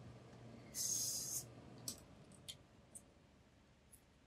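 A short hiss lasting well under a second, about a second in, then a few faint light ticks.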